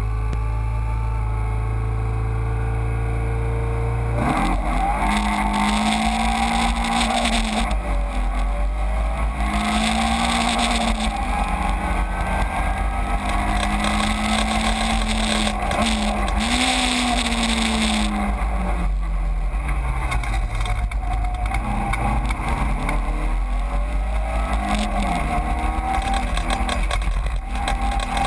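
Caterham 7 race car engine heard from the open cockpit, held at steady revs at first, then accelerating hard about four seconds in, its note rising and falling repeatedly through gear changes. Wind rushes over the open cockpit.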